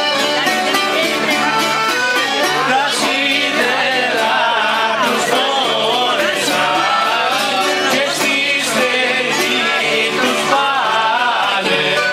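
Live Greek folk music at the table: plucked string instruments, guitars among them, strummed and picked together, with voices singing a song from about two seconds in.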